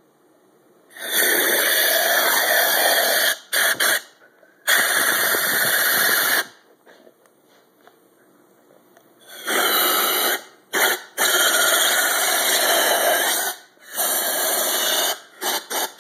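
Compressed-air blow gun hissing in sharp on-off blasts, several lasting one to two and a half seconds with short puffs between.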